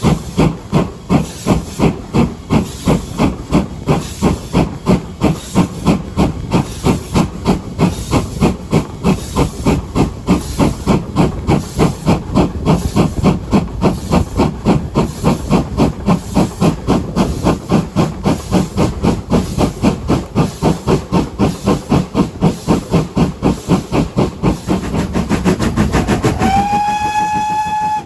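GWR Hall class 4-6-0 steam locomotive Hagley Hall working a train, its exhaust chuffing in a steady rhythm of about three beats a second. Near the end the steam whistle sounds one steady blast.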